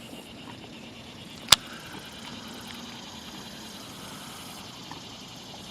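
Steady wind noise on the microphone, with one sharp click about one and a half seconds in.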